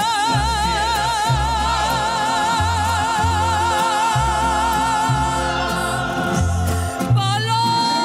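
A woman's ranchera voice holds a long, high note with a wide vibrato over mariachi accompaniment, with a bass line pulsing underneath. The note ends about five seconds in, and just after seven seconds she rises into a new high note, held steady.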